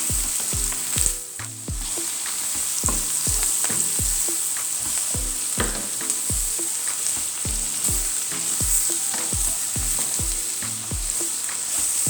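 Cabbage and mushrooms sizzling in olive oil in a frying pan while a spoon keeps turning them over, knocking and scraping against the pan many times. The sizzle drops briefly about a second in.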